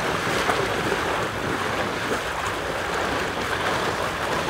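Steady rushing noise of wind on the microphone, even throughout with no distinct knocks or calls.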